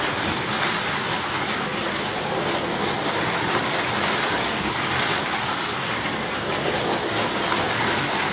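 Several 1/43-scale Artin slot cars racing laps on a four-lane track: a steady whir of their small electric motors running along the slotted track.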